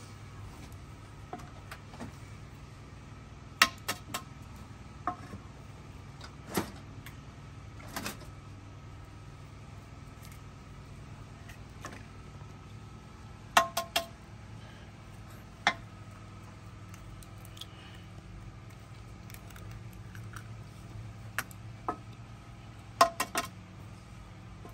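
Scattered sharp taps and clinks of eggs being cracked against the rim of a clay bowl, some in quick clusters of two or three with a short ring, over a steady low hum.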